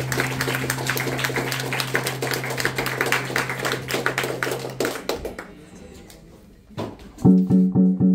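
Live band playing an instrumental passage: a held low bass note under busy drums, fading away about five seconds in. After a short lull, a guitar starts a new riff of evenly repeated notes, about three a second, near the end.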